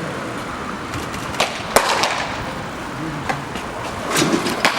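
Baseballs popping into catchers' mitts in a bullpen, a handful of sharp leather smacks at irregular intervals, the loudest near the middle and a quick cluster near the end.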